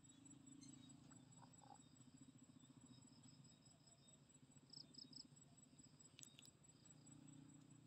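Near silence with faint insects trilling steadily at high pitch, a soft low drone beneath, and a single sharp click a little after six seconds.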